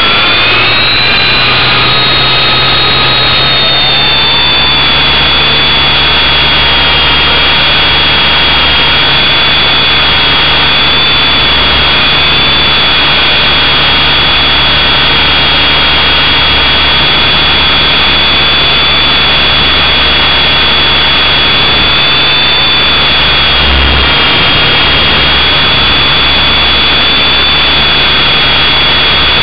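Motor of a radio-controlled model aircraft, heard up close: a high whine that rises in pitch over the first couple of seconds as it spools up, then holds steady, over a low rumble.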